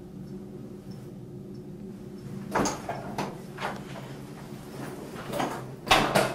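A door being handled and opened: a run of irregular knocks and clicks starting about two and a half seconds in, the loudest near the end, over a steady low room hum.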